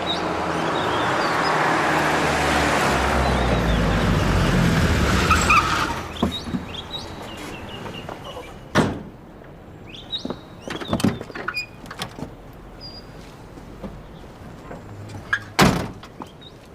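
A car running and drawing near, its noise swelling and then dropping away about six seconds in; after it, a few scattered knocks and two sharp thumps, one about halfway and one near the end.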